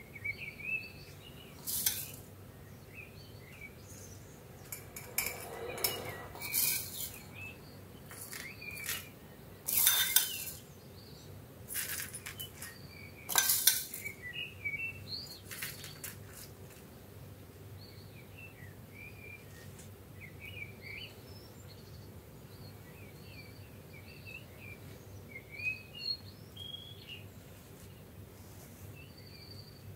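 Dry puffed rice scattered into glass cups, with sharp clinks and clatter against the glass in the first half, over birds chirping steadily in the background.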